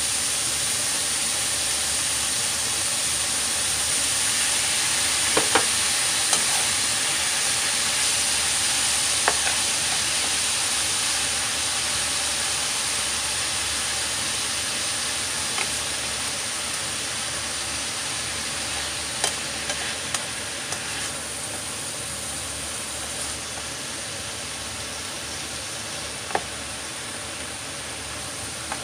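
Cucumber strips and ground beef sizzling in a frying pan as a spatula stirs them, with a few sharp clicks of the spatula against the pan. The sizzle slowly fades.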